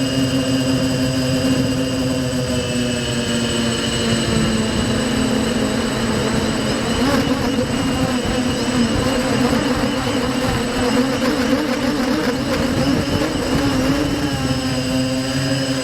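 Quadcopter's electric motors spinning 5045 propellers, a steady multirotor buzz. Its pitch dips about two seconds in, then wavers unevenly through the middle before settling.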